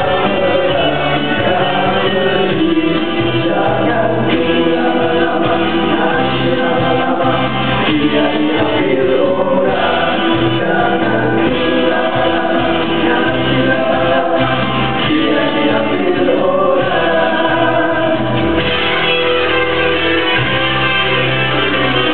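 A group of young men singing a song together into handheld microphones, over a band accompaniment with a steady bass line.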